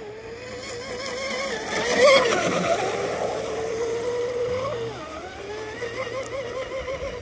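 Proboat UL-19 RC hydroplane running flat out, its Tenshock brushless motor whining over the hiss of the hull and spray. The pitch wavers as the boat wiggles and turns. It is loudest about two seconds in, and the whine shifts briefly near five seconds.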